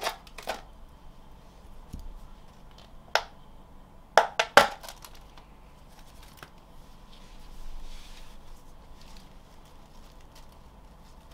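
Thin clear plastic livestock cup being handled: a few sharp plastic clicks and crinkles, two close together about four seconds in, then quieter rustling.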